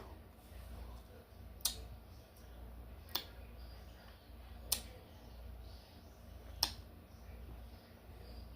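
Four short, sharp clicks, spaced about one and a half to two seconds apart, over a faint low hum.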